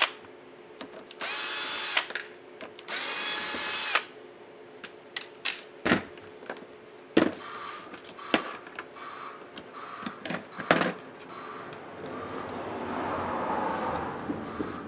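Small electric screwdriver whirring in two short bursts, backing out laptop screws. Then light clicks and taps of small parts being handled, and a soft scraping rustle near the end.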